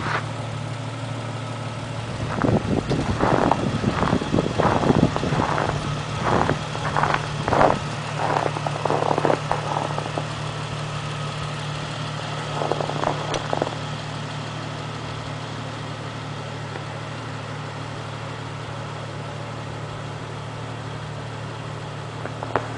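A vehicle engine idling with a steady low hum. Over the first ten seconds or so there are short bursts of rushing noise, and one more burst comes a few seconds later.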